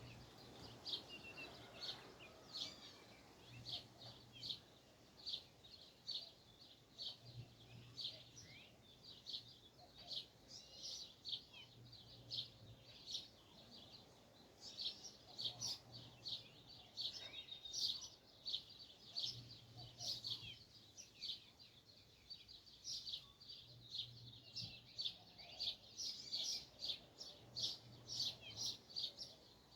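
Birds chirping in a dense, continuous chorus of short, high, rapid chirps. A faint low hum comes and goes every few seconds underneath.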